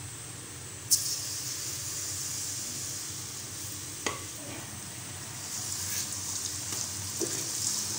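Milk-soaked semolina hitting hot ghee in a nonstick karahi and frying: a sizzle starts suddenly about a second in and grows louder near the end as the mass is stirred with a spatula. There is a single sharp clink about four seconds in.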